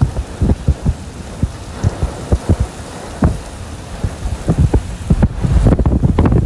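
Heavy raindrops striking close to the microphone as irregular dull thumps of varying strength. Near the end a rushing noise of wind on the microphone swells up under them.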